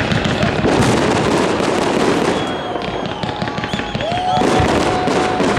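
Fireworks salute: a dense, continuous crackling of many small bursts, with a few whistling tones near the end.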